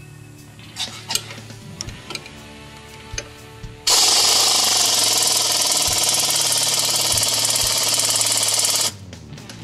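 Power wrench on a socket extension running in one loud continuous burst of about five seconds, starting about four seconds in and cutting off sharply, as it drives a new front control-arm bolt tight. A few light metal clicks come before it.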